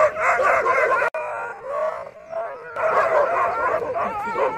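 Several dogs barking and yelping over one another in an aggressive confrontation: a German Shepherd facing off with local street dogs. The sound drops out for an instant about a second in.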